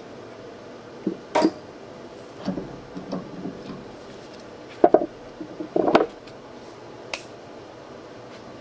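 Metal parts and hardware being handled on a bench: an irregular run of sharp clinks and knocks, loudest about five and six seconds in, over a steady background hiss.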